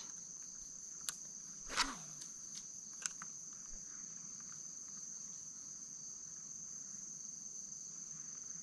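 Insects singing steadily in one continuous high-pitched tone. A few faint clicks and one brief swish about two seconds in break over it.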